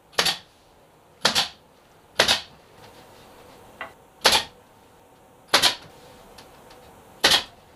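Six sharp knocks on wood, spaced irregularly one to two seconds apart, as small wooden support battens are fastened into the hatch opening.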